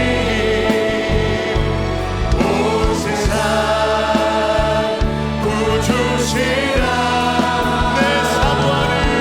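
A worship team singing a Korean praise song together with band accompaniment, voices holding long notes over a steady bass line.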